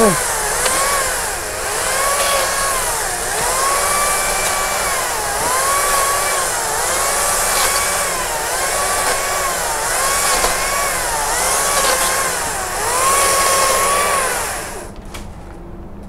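Makita top-handle battery chainsaw running, its electric motor whining with speed that repeatedly rises and dips about every second and a half. It stops about 15 seconds in.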